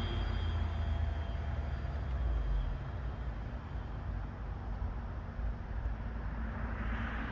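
Electric motor and propeller of a radio-controlled FMS T-28D model plane whining faintly in the air and fading over the first few seconds, leaving a steady low rumble of wind on the microphone.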